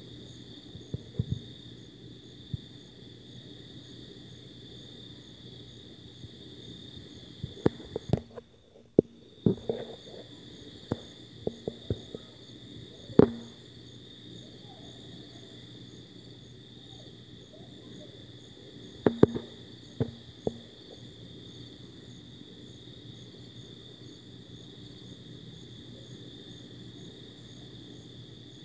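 Steady night chorus of crickets, an even high trill, with scattered clicks and knocks about a third of the way in and again about two-thirds through.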